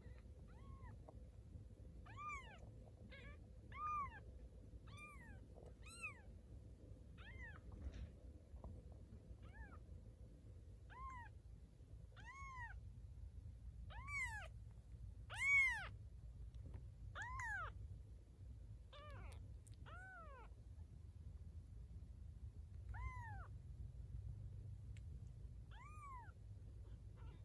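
Nine-day-old Bengal kittens mewing: thin, high-pitched cries that each rise and fall in pitch, coming one at a time about every second or so, the loudest a little past halfway.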